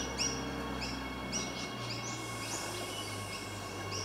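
Birds giving short repeated chirps about twice a second over a steady low hum from an approaching Adelaide Metro 4000 series electric train.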